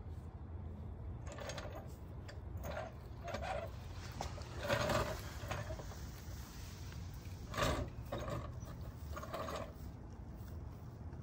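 Red hydraulic floor jack being set and worked under a car: a string of short mechanical clicks and knocks at uneven intervals, the loudest about halfway through and again a little later.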